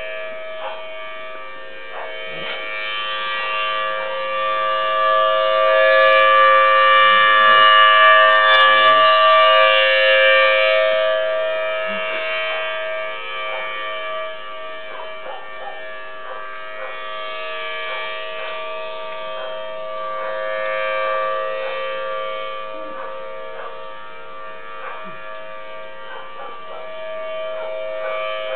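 Civil defense siren sounding a long steady wail that swells louder and fades back twice, with a Weimaraner howling along with it.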